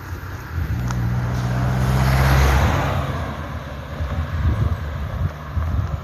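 A car driving past on an asphalt road. Its engine and tyre noise swell to a peak a little after two seconds in, then fade away.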